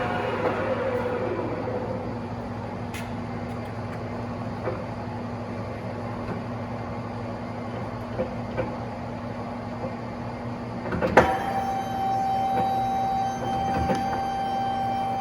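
TOS SUI 63 engine lathe running through a spindle speed change: a steady drive hum, the whine falling in pitch as the spindle winds down, a few light clicks, then a loud clunk about eleven seconds in, after which a steady high gear whine sets in at the new spindle speed.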